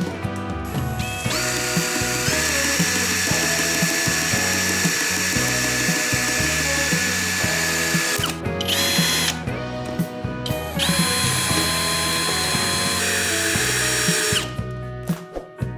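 Handheld electric power tool running in three runs: a long one that spins up in steps and holds a steady whine, a short burst, then another long run that stops suddenly, with background music underneath.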